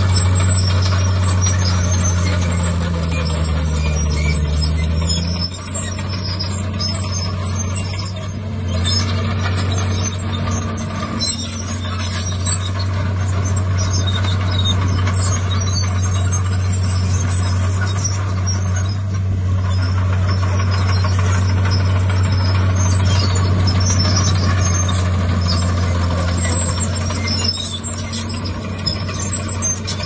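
Heavy diesel engines of earthmoving machinery running steadily under load, with the engine note dropping a few seconds in.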